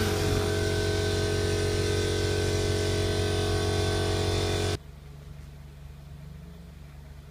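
Handheld orbital sander's motor running steadily, then cutting off abruptly about five seconds in, leaving only a quieter low hum.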